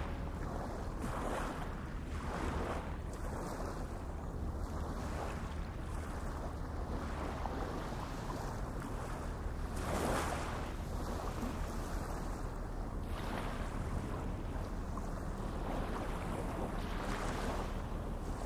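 Sea water washing in repeated swells, one louder about ten seconds in, with wind on the microphone and a steady low hum underneath.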